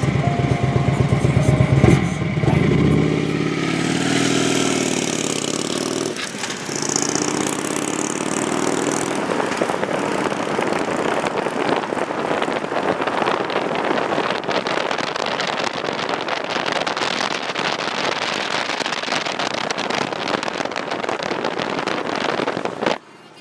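Car on the move: steady road and wind noise with engine hum, rising and shifting in pitch over the first few seconds, then cutting off abruptly near the end.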